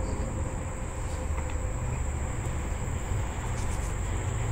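Steady low outdoor rumble, with a thin, steady high drone above it like insects calling.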